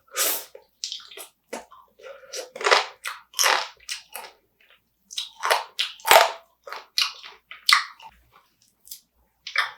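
Close-miked biting and chewing of spicy marinated raw crab, with crunching in irregular bursts as the shell and meat are bitten into.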